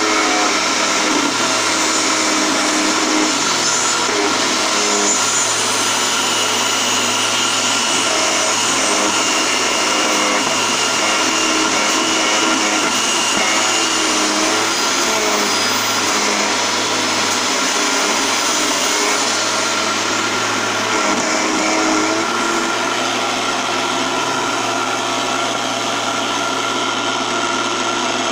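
Benchtop mini wood lathe's motor running steadily with a hum and a whine, while a hand-held turning tool scrapes and cuts the spinning wooden blank, giving a steady hiss of cutting.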